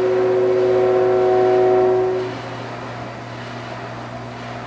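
Diesel locomotive air horn sounding one long blast, a chord of several notes held steady, that stops a little over two seconds in; a steady low hum continues underneath. The horn is sounding a warning for the grade crossing as the train approaches.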